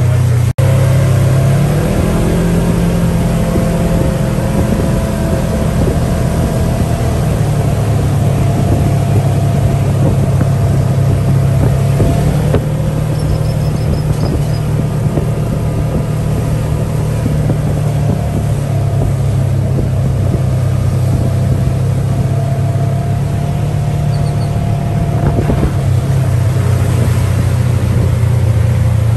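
Engine of an open side-by-side off-road buggy running steadily at cruising speed, a constant low drone mixed with road and wind noise. The sound drops out for a split second about half a second in.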